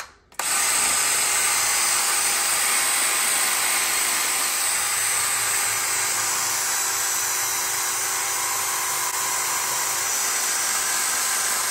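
Cordless drill spinning a hard bristle brush inside the port of a VW dual-carburettor intake manifold, scrubbing an etched texture into the port wall. It starts up after a brief stop about half a second in and then runs steadily.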